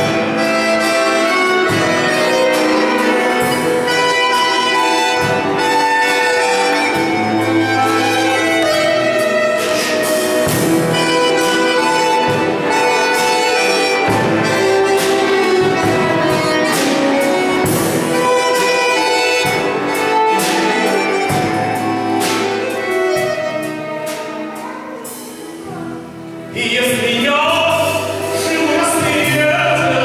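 A small live band plays a lively tune on violin, accordion, guitar and drum kit, with drum hits through it. Near the end the music drops quieter for a couple of seconds, then the full band comes back in sharply.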